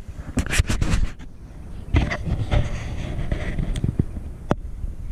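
Close-up scraping and knocking handling noise over a low rumble, with many irregular sharp clicks.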